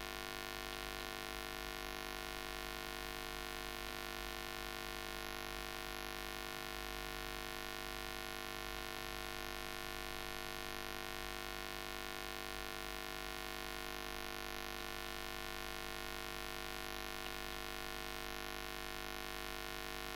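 Steady electrical hum with many overtones over a faint hiss.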